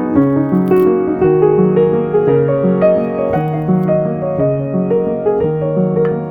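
Background music: a gentle piano piece playing steady notes.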